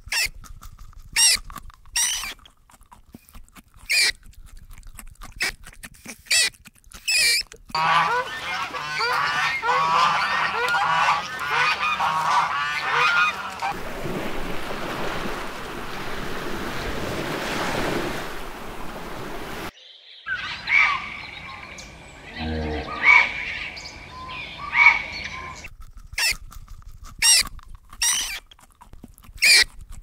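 A run of animal calls: short, sharp honking calls repeated through the first several seconds, then a dense stretch of many overlapping chirping calls, a steady wash of noise in the middle, and more short separate calls toward the end.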